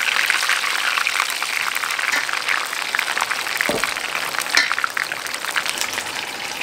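Bacalaito-battered chicken pieces deep-frying in a pot of hot oil: a dense, steady crackle and sizzle of bubbling oil, with one brief knock a little over halfway through.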